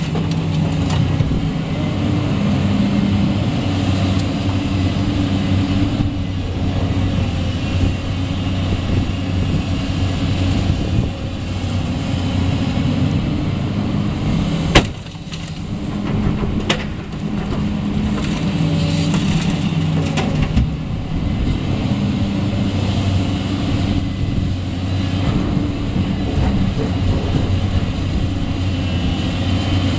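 Heavy diesel engine of construction machinery running steadily under work, with one sharp knock about halfway through.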